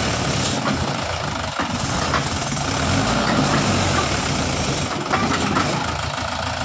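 Mahindra tractor's diesel engine running steadily under heavy load as it strains to pull a stuck, loaded trailer.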